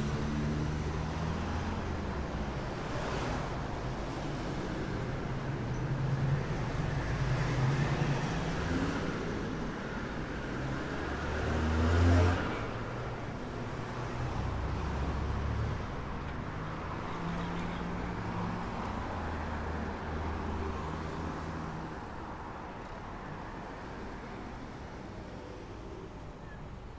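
Street traffic: car engines running and cars passing, with one passing close and loud about twelve seconds in. The traffic noise eases off toward the end.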